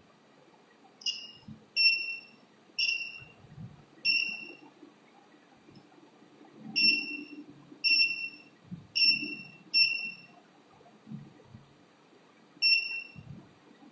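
Small electronic buzzer giving short, high-pitched beeps, nine in all at uneven intervals starting about a second in, as the wire contact is touched to close the circuit. Soft low thuds of the wire and clip being handled come between the beeps.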